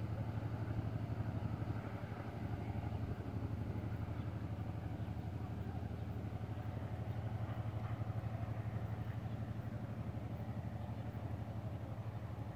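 A low, steady engine drone with a fast, even throb, from an engine out of sight.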